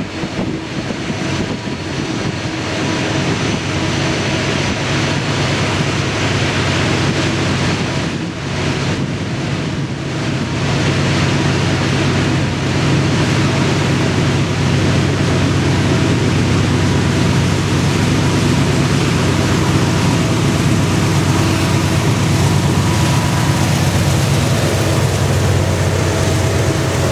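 Two diesel-electric freight locomotives, a GE C40-8W leading an EMD SD60, approaching under power and passing close by, their V16 engines a steady low drone that grows louder as they near.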